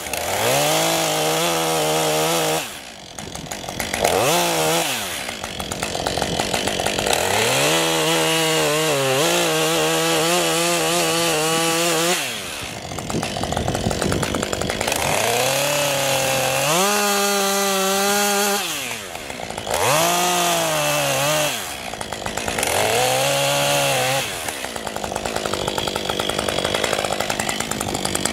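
Husqvarna 550 XP two-stroke chainsaw running at high revs while cutting into a fir trunk. The engine note sags and recovers over and over as the chain bites. It drops back briefly about four times, then runs lower near the end.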